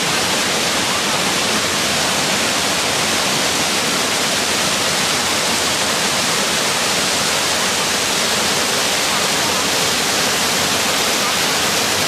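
Water rushing over small rocky waterfall cascades into a stream pool, a steady, even hiss.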